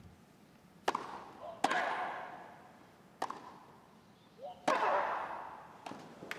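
Tennis rally on a grass court: a serve about a second in, then racket strikes on the ball every one to one and a half seconds, about six in all. Several of the hits come with a player's loud grunt of effort.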